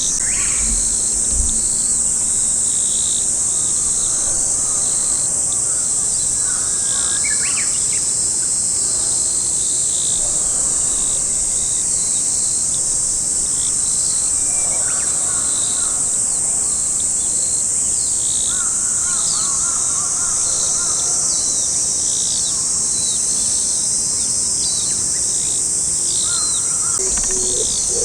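Insects trilling in a loud, unbroken high-pitched drone, with small birds giving short chirps every second or so over it.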